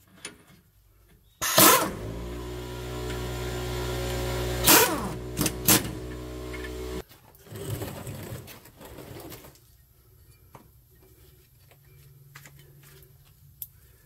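Pneumatic impact wrench on an air hose running for about five seconds, starting suddenly and cutting off, as it drives the U-bolt nuts on a steering stabilizer bracket. A few lighter clicks and knocks follow.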